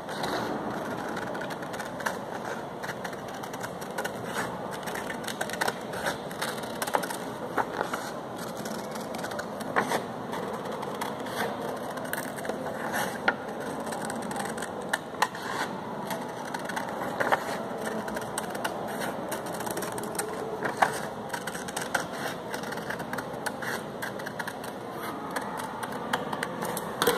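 Scissors cutting a circle out of coloured paper: a long run of short snips with the paper rustling as the sheet is turned.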